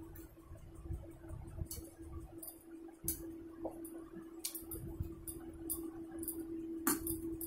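Eating by hand from a steel plate: fingers mixing rice, with several sharp clinks of fingers and bangle against the steel, and close chewing and mouth sounds. A steady low hum runs underneath.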